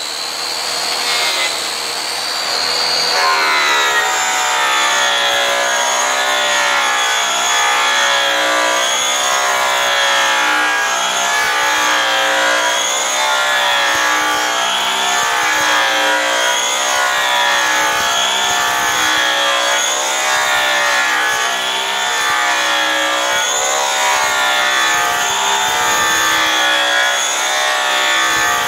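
Two electric rotary polishers running with buffing pads against an aluminum fuel tank end cap, cutting with brown Tripoli compound. Their motor whine is steady overall but wavers in pitch as the pads are pressed and moved, with a rougher, noisier stretch in the first few seconds.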